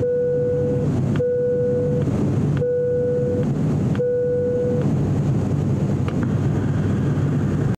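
ATR 42-600 turboprop cabin noise in flight: the propellers and engines running with a steady low drone. Over the first five seconds a steady beep, under a second long, sounds four times over the drone.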